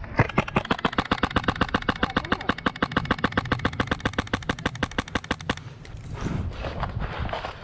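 Airsoft SIG MCX rifle firing one long full-auto burst of about five seconds: a fast, evenly spaced rattle of shots that stops abruptly.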